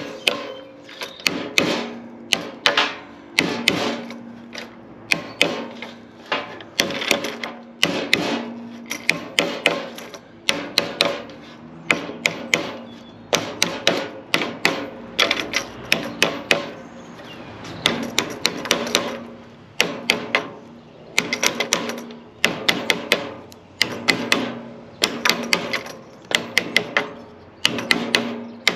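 Hammer tapping a fitting loose from a wooden boat mast: rapid sharp strikes in bursts of several at a time, with short pauses between bursts and a low ringing between the blows.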